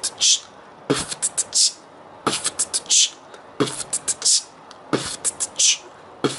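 A beatboxed beat made with the mouth and lips: a bass drum thump, a quick run of hi-hat ticks and a hissing snare. The pattern repeats steadily a little under every second and a half.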